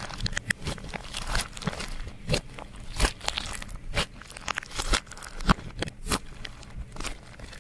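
Hands working slime, giving irregular sharp crackles and pops, several a second.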